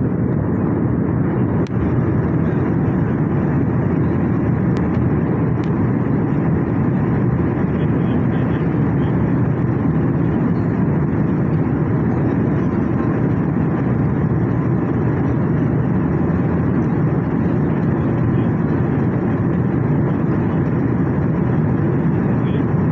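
Steady cabin noise of an airliner at cruise altitude, the engines and rushing air heard from inside the cabin. Three faint clicks sound in the first few seconds.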